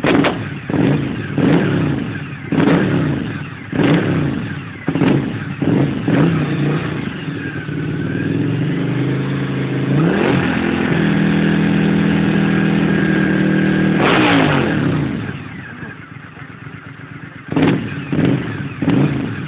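Suzuki SV1000S 90-degree V-twin revved in short throttle blips about once a second, then held at high revs for several seconds. It drops back with a sharp crack from the exhaust, then gives two more blips near the end. The engine is misfiring and popping, which the owner puts down to plugs that need replacing.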